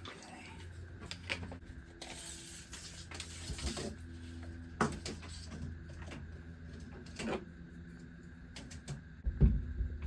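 Scattered knocks, taps and a scrape of lumber and hand tools being handled while a 2x4 workbench frame is fitted, over a low steady hum. The loudest knocks come about five seconds in and near the end.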